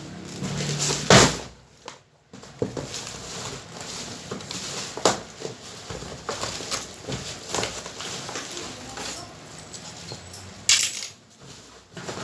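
Speaker packaging being handled and opened: cardboard and packing material crackling and rustling, with irregular knocks and scrapes. The loudest come about a second in and near the end.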